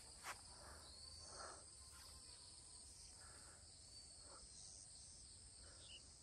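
Near silence: faint outdoor ambience with a steady high insect hum and a few faint soft sounds.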